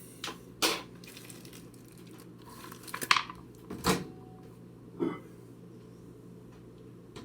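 Kitchen handling sounds: a handful of separate knocks and rustles as ingredient packets and dishes are moved about on a counter.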